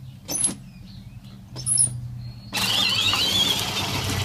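Battery-powered Power Wheels Rhino ride-on toy driving, its electric motors and plastic gearboxes humming. Two short knocks come early. From about two and a half seconds in it gets much louder, with a wavering high whine as it passes close.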